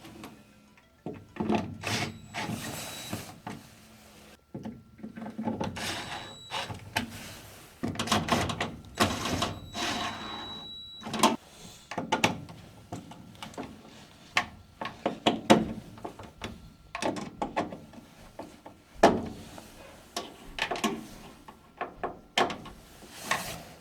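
Power drill driving in the mounting screws of a replacement furnace inducer motor in several short bursts of a second or two, with a steady whine. Sharp clicks and knocks of metal parts being handled come in between the bursts.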